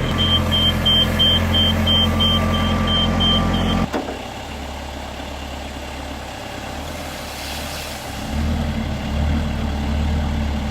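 Rough-terrain forklift engine running with a reversing alarm beeping in a steady rapid series. About four seconds in, the beeping and the louder engine sound cut off abruptly. The engine then runs quieter and rises again near the end.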